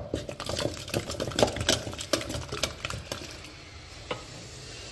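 A spoon stirring cooked dal in a metal pot: irregular clicks and scrapes of the spoon against the pot, thinning out after about three seconds.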